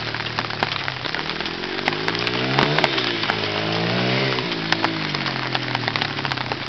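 Trail bike engine revving up and easing off as it is ridden: the pitch climbs to a peak about two and a half seconds in, drops, then rises and falls again around four seconds in. Under it is a steady hiss of heavy rain, with scattered sharp ticks.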